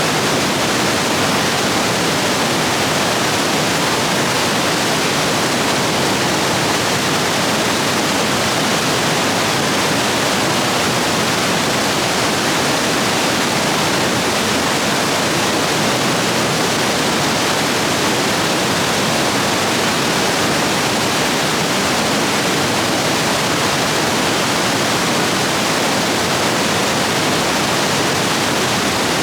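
Rapids of a rain-swollen stream rushing over rocks in a steady, loud, even roar of water.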